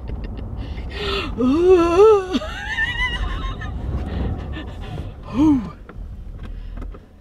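Wordless vocal exclamations from the people in the car: a drawn-out, rising and wavering cry about a second and a half in, and a short falling one about five and a half seconds in. Under them runs the low rumble of the Ford Fusion ploughing through deep snow, heard from inside the cabin, which drops away near the end.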